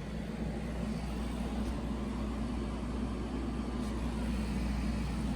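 Black+Decker portable air conditioner running in heat mode shortly after start-up: a steady low hum of the compressor and blower fan.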